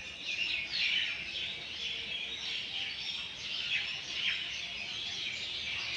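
A large flock of birds chattering in a dense, continuous chorus of overlapping chirps and calls as they gather to roost in a tree at dusk.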